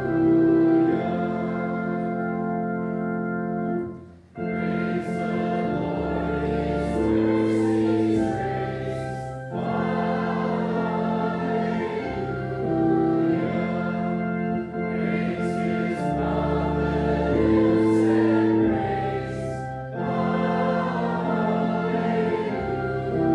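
Church congregation singing a hymn together with organ accompaniment, in long held chords. There is a brief pause between lines about four seconds in.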